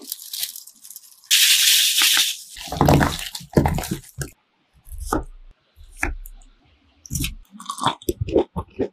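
Chili dipping powder and sugar hissing as they are sprinkled over cut fruit, then gloved hands squelching through the wet guava, pineapple and tomatoes as they toss them. Short crisp bites and chewing of the fruit follow.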